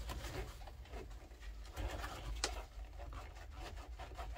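Hands working at a stubborn plastic car wiring connector: faint handling noises and one sharp click a little past the middle, over a steady low hum.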